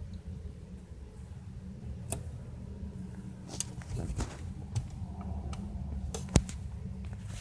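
Handling noise from a handheld phone microphone: a steady low rumble with scattered clicks and taps, the sharpest a single tap about six seconds in.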